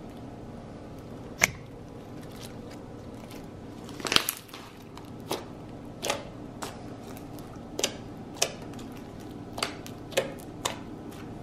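Bead-filled orange slime being pressed and poked by hand, giving a string of sharp, irregular pops and clicks as air pockets burst, about ten in all, the loudest about a second and a half in and just after four seconds in. A steady low hum runs underneath.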